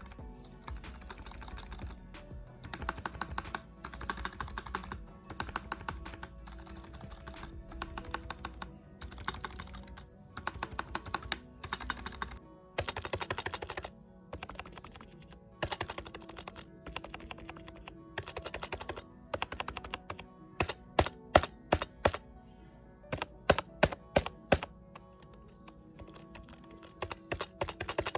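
Typing on a cheap membrane-switch "gaming" keyboard, slightly modded: runs of fast key presses in bursts, then a string of louder, separate single key strikes about two-thirds of the way through.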